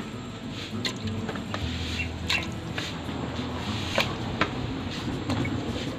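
Hands squeezing and turning raw chicken pieces in a watery marinade in a metal pot: wet squelching and sloshing, with a few light clicks.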